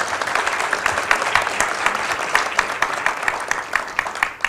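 Audience applauding: a dense run of many hand claps that starts to die away at the very end.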